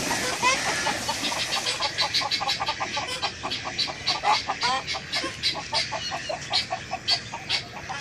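A flock of domestic ducks quacking in a rapid, continuous chatter of short calls, several a second.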